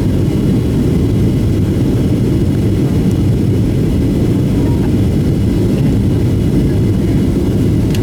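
Steady low rumble inside the passenger cabin of a Boeing 737-700 in flight, the noise of its CFM56-7B engines and the airflow.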